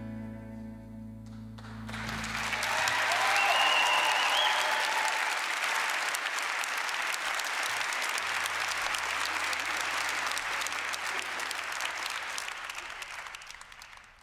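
The band's final chord, acoustic guitar among it, rings and dies away, then the audience applauds, with a few voices cheering and a whistle soon after the clapping starts. The applause tails off near the end.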